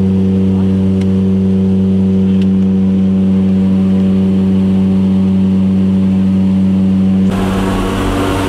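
Propeller aircraft engines droning steadily, heard from inside the cabin of a skydiving jump plane. About seven seconds in a loud rush of air noise suddenly joins the drone.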